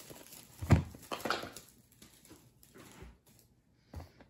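A small cardboard speedcube box handled and knocked on a table: one sharp thump less than a second in, a few lighter knocks just after, and another knock as the box is set down near the end.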